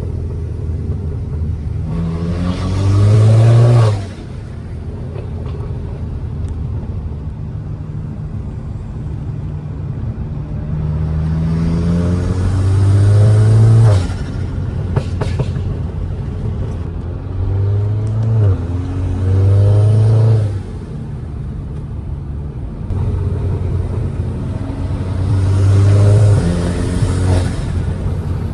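Turbocharged Audi A4 engine revving up in several hard pulls, the pitch rising through each, every pull cut off suddenly when the throttle closes, with a brief turbo flutter at lift-off.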